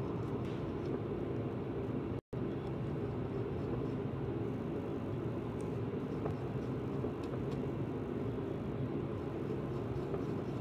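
A steady low rumble of background noise, with a few faint clicks of a utensil against a glass mixing bowl as pancake batter is stirred by hand. The sound cuts out completely for a moment about two seconds in.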